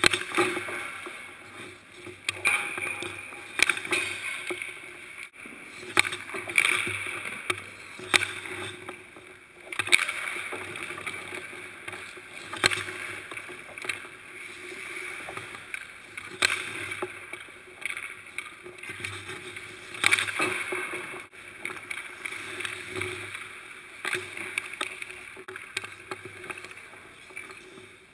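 Ice hockey skate blades scraping and carving on the ice, broken by a series of sharp cracks of a hockey stick slapping pucks as shots are taken, about half a dozen loud ones spread through.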